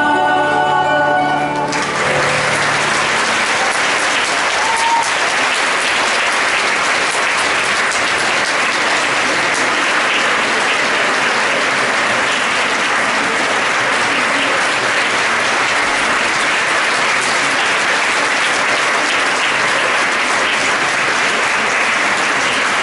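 A boys' vocal group holds its final sung chord, which breaks off after about a second and a half into steady audience applause that continues unbroken.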